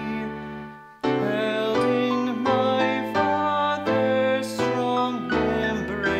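A hymn sung with instrumental accompaniment in slow held notes. One phrase dies away and the next begins about a second in.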